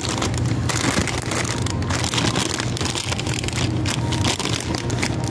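Handling noise of a phone being moved and propped up: steady rustling and rubbing on the microphone with small clicks, over a constant low hum.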